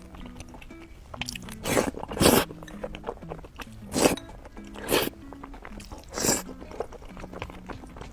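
Crunchy food being bitten and chewed close to the microphone: five loud crunches in the first two-thirds, with smaller crackles of chewing between them. Background music plays throughout.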